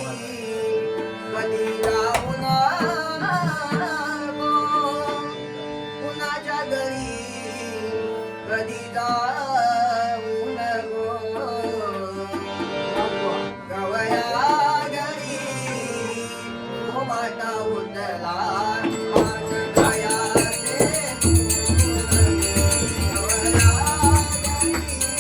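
Traditional Konkan devotional bhajan: a young male lead singer's wavering melodic line over steady held tones and light tabla. About twenty seconds in, the drums strike harder with a quick beat and metallic jingling joins.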